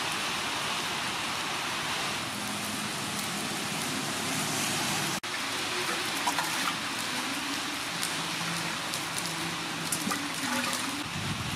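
Water splashing and sloshing as a hand scoops it out of a large glazed clay water jar, with a few sharper splashes, over a steady rushing noise.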